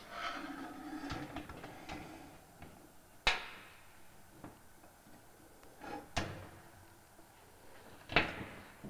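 Handling noises from a Go-fer III carriage with its radius-rod attachment on a steel plate: soft rattling at first, then three sharp metal knocks, about a third of the way in, about two-thirds in, and near the end.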